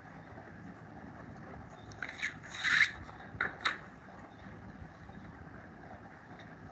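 Steady hiss from an online call's microphone, with a short scraping rustle two to three seconds in and two sharp clicks just after it.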